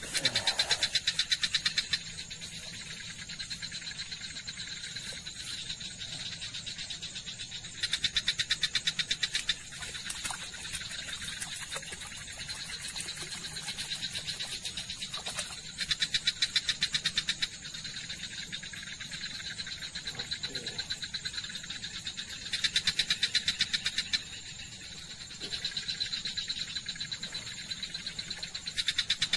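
Night chorus of small calling animals: a fast pulsed trill that swells loud for a second or two about every six to eight seconds, over a softer continuous trill.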